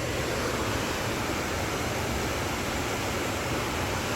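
Steady rushing roar of a waterfall, an even wash of noise with no change in strength.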